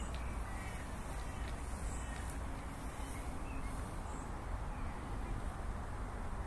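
Outdoor ambience: a steady low rumble with a few faint bird calls early on.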